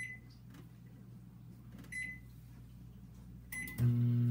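Microwave oven keypad beeping three times as the cook time is entered. Near the end the oven starts running with a steady low hum.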